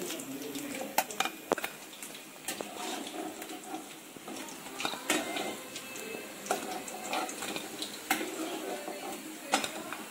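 Sharp clinks and taps of a utensil against a frying pan and plate as pieces of fried chicken are lifted out and set down, about ten in all, spread irregularly.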